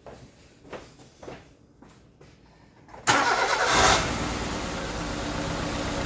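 A 2002 Nissan Almera's 1.6 twin-cam four-cylinder petrol engine starting about three seconds in, a short loud burst that settles into a steady idle, after a few faint clicks. The engine has a misfire from a faulty ignition coil.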